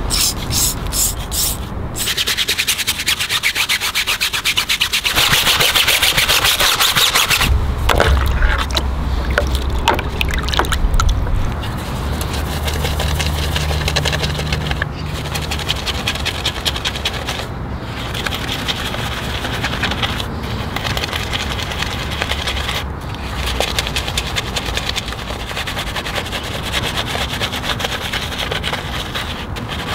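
Hand scrubbing on a car during a detailing wash: fast, even rubbing strokes. A low, steady machine hum comes in about eight seconds in and runs under the scrubbing.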